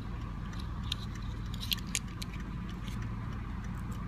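Small clicks and light rattles of handheld pocket tools being handled, with a few sharp ticks a little before the middle, over a steady low hum.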